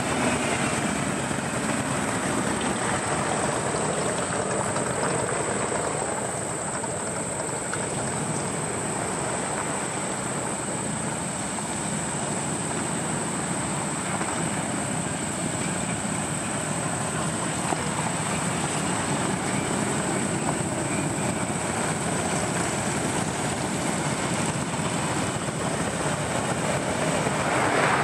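A long column of cruiser and touring motorcycles riding slowly past in procession, their engines running in a steady continuous stream of passing machines, growing louder near the end as bikes pass close.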